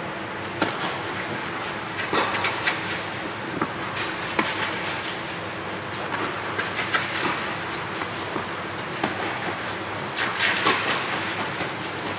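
Tennis rally: a serve and then the ball struck back and forth by rackets and bouncing on the court, sharp echoing pops a second or so apart over a steady background hum in a large hall.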